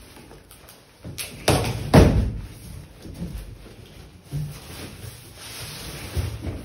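Cardboard packaging being handled. A few heavy thuds about a second in, the loudest near two seconds with a short ringing tail, then softer scraping and rustling.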